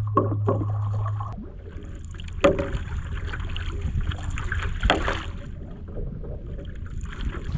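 Water sloshing and lapping around a paddleboard floating on a lake, with two sharper splashes about two and a half seconds apart. At the start a steady low hum runs briefly and cuts off about a second and a half in.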